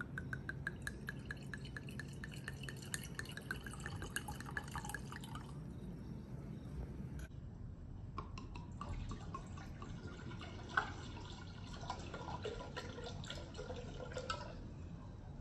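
White wine glugging from a bottle into glasses in two separate pours, each a fast run of gurgles with a ringing note from the glass. One sharp tap stands out near the middle of the second pour.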